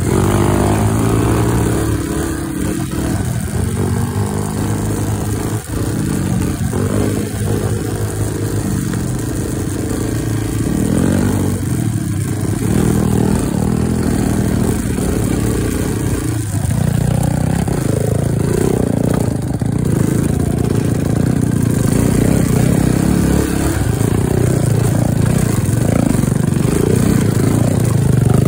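Off-road motorcycle engine running hard on a trail ride, its note rising and falling as the throttle opens and closes.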